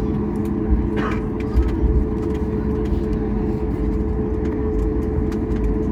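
Cabin noise inside a Boeing 737 MAX 8 taxiing after landing: a steady low rumble with a constant engine hum, and a few low thumps and light rattles as the wheels roll over the taxiway.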